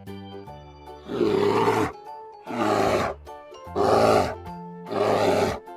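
Bear growling four times, each growl about a second long, over steady background music.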